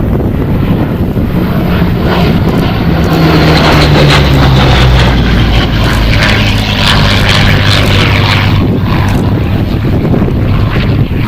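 Hawker Hurricane's Rolls-Royce Merlin V12 engine during a flypast. It is loudest about four to five seconds in, its pitch drops as the aircraft goes by, and it eases off in the last few seconds.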